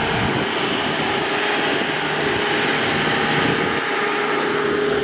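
Nissan 5 hp outboard motor running steadily in gear, pushing the boat forward.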